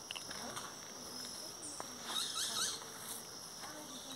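Steady high-pitched chirring of insects, with a cluster of brief chirps and faint rustles about two seconds in.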